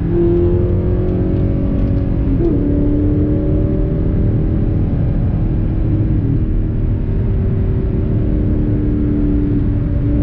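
Audi R8's 4.2-litre V8 running under way, heard from inside the cabin as a steady note over a low rumble. The note drops in pitch about two and a half seconds in and shifts again slightly around six seconds.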